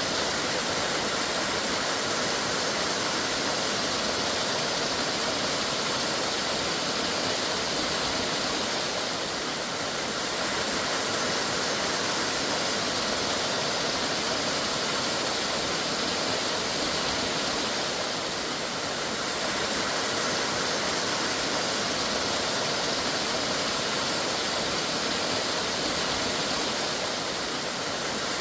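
Mountain valley stream rushing over rocks: a steady, dense hiss of running water.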